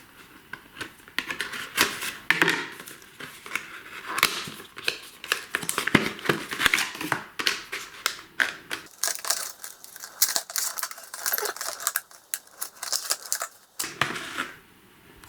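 Retail packaging of an M.2 NVMe SSD being opened by hand: a dense run of crackling, crinkling and sharp clicks, with the low rumble falling away for the last few seconds so only the higher crackles remain.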